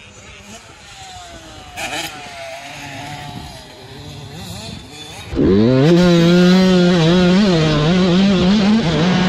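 Husqvarna TC85 two-stroke dirt bike revving, faint and distant at first, its pitch rising and falling as it rides the track. About five seconds in it turns suddenly loud and close, heard from on the bike, the engine pitch climbing and wavering as the rider drives hard up the track.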